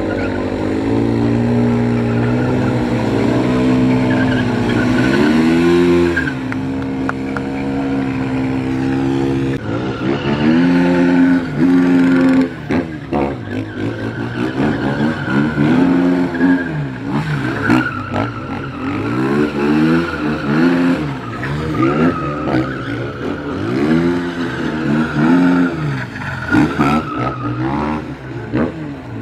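Supermoto motorcycle engines held at steady high revs through a smoky rear-tyre burnout for the first several seconds. Then a single bike is revved up and down again and again with tyre squeal as it drifts in circles on asphalt.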